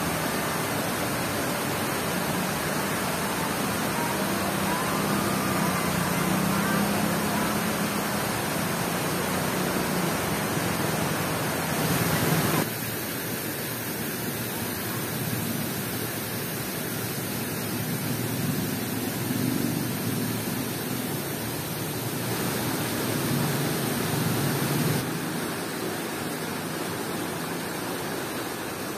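Steady rushing of water pouring over a dam's concrete spillway weir, a continuous noise that drops abruptly to a quieter level about twelve seconds in.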